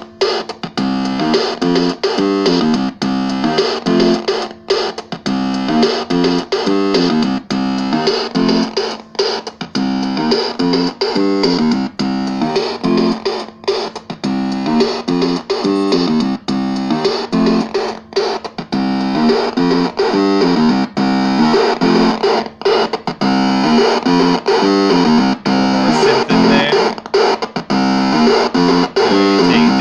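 Realistic Rap-Master toy keyboard played through a Time Box Crunch analog synth pedal and a small Squier amp, turned into a thick, distorted synth sound. It plays a fast repeating pattern of short stepped notes over a steady held low note.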